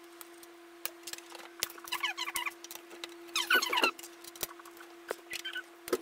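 Screwdriver driving a power supply mounting screw into a steel PC case: short bursts of squeaking as the screw turns in its thread, with a few sharp clicks.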